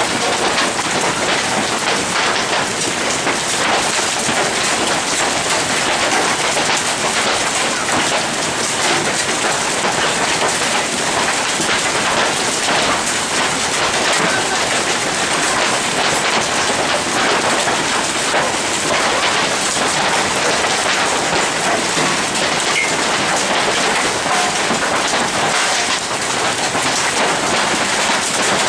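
Hailstones pelting down heavily in a dense, steady clatter of countless small impacts.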